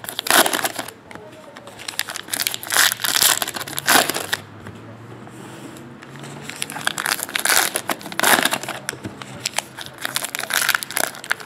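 Foil trading-card pack wrappers crinkling in irregular bursts as packs are opened and handled by hand, with a brief quieter lull midway.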